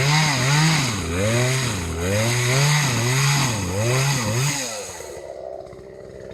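Chainsaw engine running with its speed rising and falling about once a second, then settling to a lower, quieter steady note about five seconds in.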